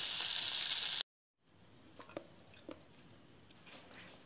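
Marinated tilapia sizzling on a hot stovetop grill pan as a steady hiss, which cuts off abruptly about a second in. Then only faint, scattered soft clicks and taps.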